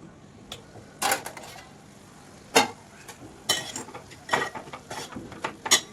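A spatula stirring dried shrimp in a pan, scraping and knocking against the pan several times at uneven intervals over a faint steady hiss.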